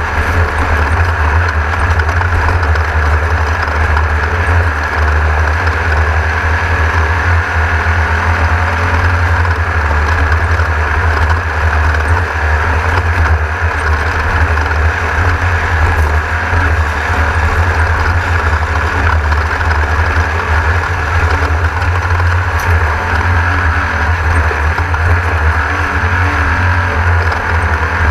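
Class 1600 off-road race car's air-cooled VW engine running steadily, a constant low drone with no clear revving.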